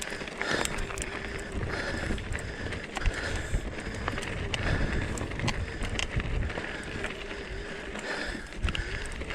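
Electric mountain bike climbing a rocky trail: tyres knocking and crunching over rock, with a faint steady hum from the motor and wind rumbling on the microphone.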